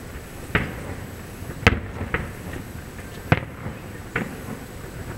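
Aerial firework shells bursting at a distance, about five sharp bangs at uneven intervals, each trailing off in a short echo.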